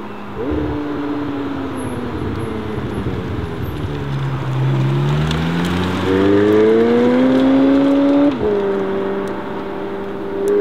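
McLaren 720S twin-turbo V8 accelerating. The engine note jumps up about half a second in and sags, then climbs steadily through a gear. It drops sharply at an upshift about eight seconds in and starts climbing again near the end.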